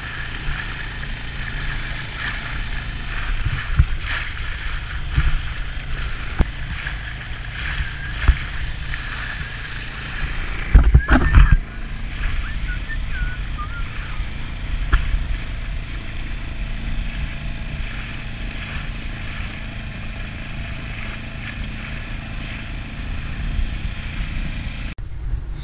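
Suzuki DF6 single-cylinder four-stroke outboard motor running steadily under way, pushing a small inflatable boat, with low rumble from wind and water. About eleven seconds in, a short burst of loud thumps.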